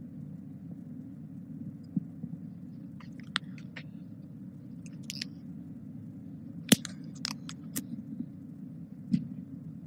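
Marker pen writing on a whiteboard: short squeaks and taps in scattered clusters, the sharpest about two-thirds of the way through, over a steady low hum.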